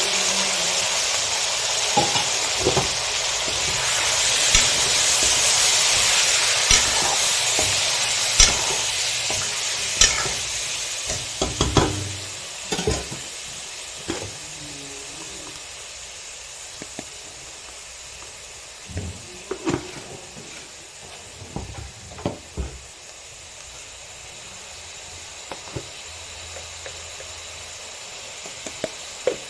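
Chicken sizzling in a pan while a utensil stirs it, knocking and scraping against the pan now and then. The hiss is loud at first and dies down after about twelve seconds, leaving mostly the stirring knocks.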